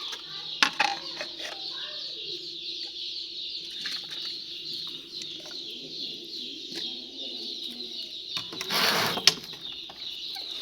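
A flock of young Golden Misri chicks peeping continuously in a dense, high-pitched chorus. Scattered light knocks can be heard, and a short rushing noise comes about eight and a half seconds in.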